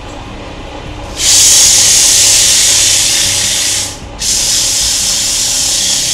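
Sandpaper pressed against a wooden mallet head spinning on a wood lathe, giving a loud, even hiss in two long passes with a short break near the middle.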